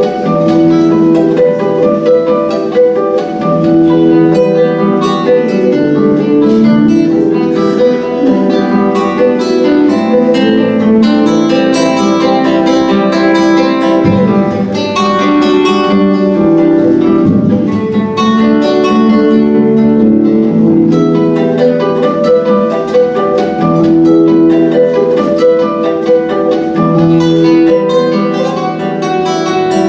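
Instrumental music played on plucked string instruments, guitar- or harp-like, with a continuous melody over a chordal accompaniment.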